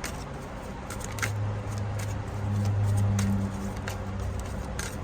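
Tarot cards being shuffled and handled, a scattering of light clicks, with a low steady hum that comes in about a second in and fades out near four seconds.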